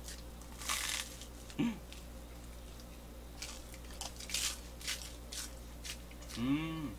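Crunchy bites into butter-toasted bread and chewing, as short crisp crunches, with a brief hummed "mm" near the end.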